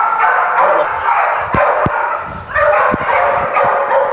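Many kennelled dogs barking and yipping at once in a continuous, overlapping din, with a few dull knocks about a second and a half in and again near three seconds.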